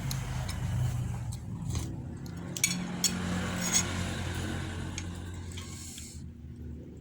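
A spoon or fork clinking and scraping against a bowl during eating, several sharp clicks near the middle, over a steady low hum.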